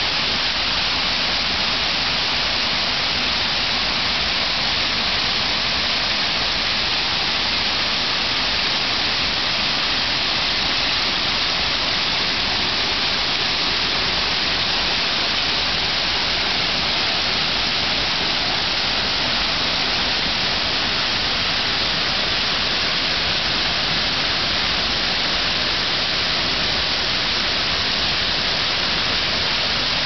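Small stream waterfall: water pouring in a wide sheet over a low rock ledge and splashing into the pool below, a steady rushing hiss.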